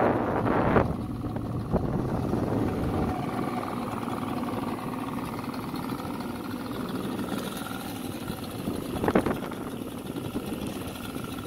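Boat motor running steadily under way, with wind buffeting the microphone in the first second and a short rush of noise about nine seconds in.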